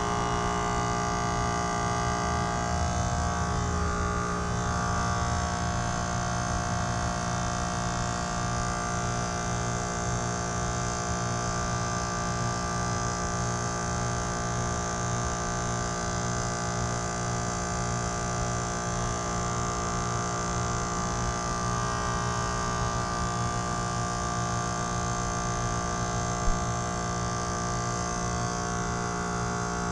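Trane XR14 heat pump outdoor unit running in defrost, a steady hum made of several fixed tones over a hiss. There is a single short tick near the end.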